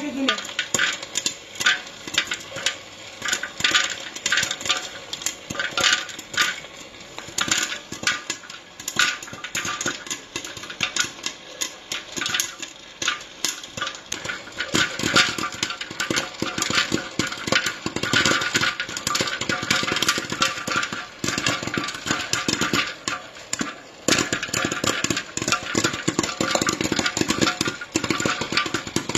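Popcorn kernels popping rapidly and irregularly inside an Aicook popcorn maker's plastic dome, the pops growing denser about halfway through, over the steady hum of the machine running.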